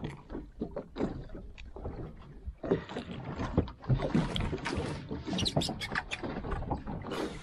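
Sea water lapping and splashing against the side of an inflatable boat, with irregular small knocks and splashes as a hand works in the water at the hull.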